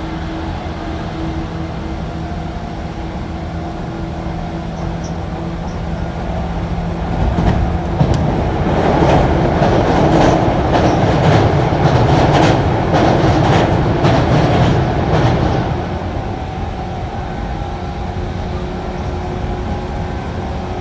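JR 185 series express train running on the rails, a steady rumble with a faint hum. About seven seconds in it grows louder for several seconds with rapid clacking of wheels over rail joints, then settles back to the steady run.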